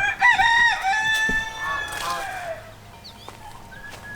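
A rooster crowing once: a few short notes, then a long held note that falls away, about two and a half seconds in all. Faint short bird chirps follow.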